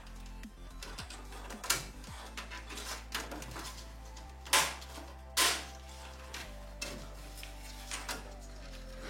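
Background music with held tones, and a few sharp clicks and knocks of PC parts being handled in a computer case.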